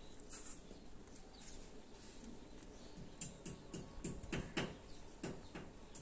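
Budgerigars calling faintly, with an irregular run of short chirps and clicks, several a second, starting about halfway through.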